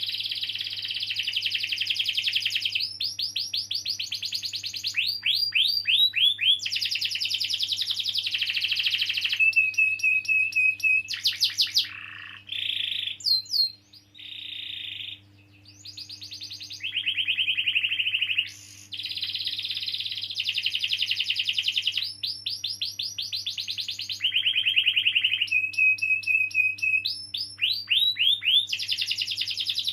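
Domestic canary singing a long, full song: rapid rolling trills and runs of fast repeated sweeping notes, with a brief broken-up passage about halfway through before the rolls resume.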